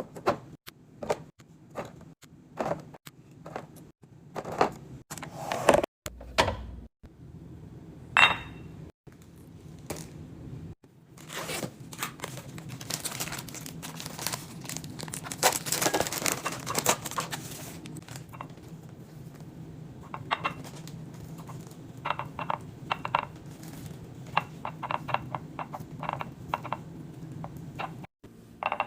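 Food containers and packaging being handled during fridge restocking. A string of knocks and clicks as things are set down comes first, with a single glassy clink about eight seconds in. Then a long stretch of rustling and tearing noise, and quick clusters of rattling clicks near the end.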